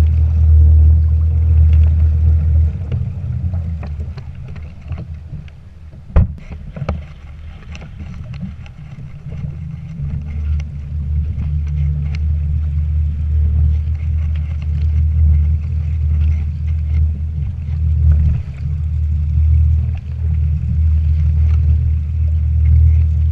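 Steady low rumble of a kayak under way on open water. The rumble drops away for several seconds and then builds again, with one sharp knock about six seconds in.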